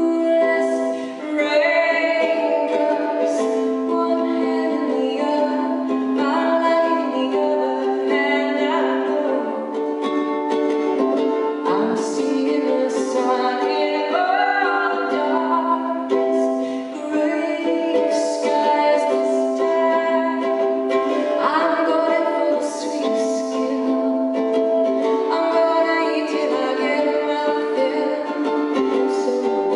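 A woman singing a slow, sweet love song to her own strummed ukulele, sung phrases coming and going over a steady chord strum.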